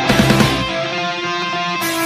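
Rock-style music with guitar: held chords, with a change and a few struck notes right at the start.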